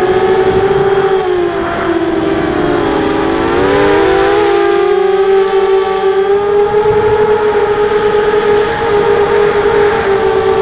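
NightHawk 250 racing quadcopter on a 3S battery: its four brushless motors and propellers whine, heard close up from the onboard camera. The pitch wavers and splits around four seconds in as the throttle changes, then holds steadier and a little higher.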